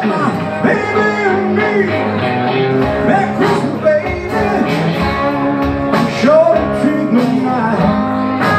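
Live amplified duo playing a blues-rock song: a man sings lead while strumming a nylon-string acoustic-electric guitar, with a second, electric guitar playing alongside.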